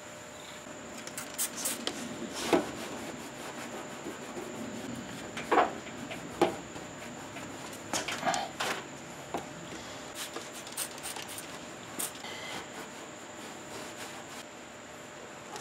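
A shop towel rubbing and wiping a car's body panel, with scattered sharp clicks and light knocks from handling, over a steady hiss.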